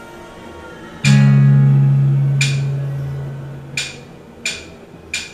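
Intro of a karaoke backing track over the booth speakers: low music, then about a second in a loud strummed guitar chord that rings and slowly fades, followed by four short sharp percussive hits.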